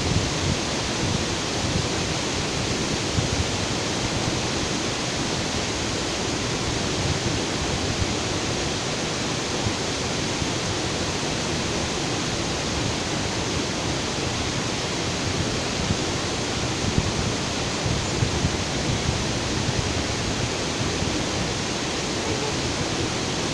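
Waterfall, its falling water rushing steadily.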